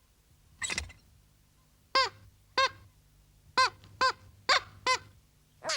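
A cartoon character's squeaky, honk-like gibberish voice: six short calls in an uneven run, each rising and falling in pitch, after a fainter brief sound near the start.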